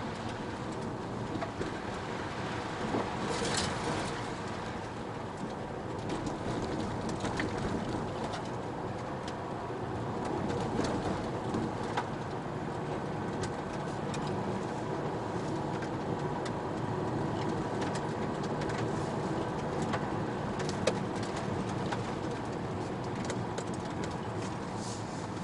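Car driving slowly over a rough dirt and gravel road, heard from inside the cabin: steady engine and tyre noise with scattered sharp clicks and knocks. Birds call outside.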